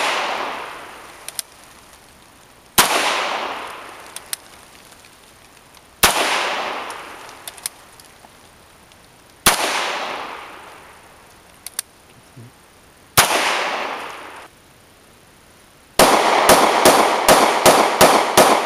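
Gunshots: four single shots about three seconds apart, each with a long echoing tail, then near the end a rapid string of about ten shots, roughly four a second.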